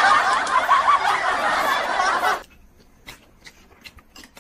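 An edited-in laughter sound effect, a dense burst of 'hahahaha' laughing that cuts off suddenly a little over two seconds in. After it come only faint small clicks of eating and utensils.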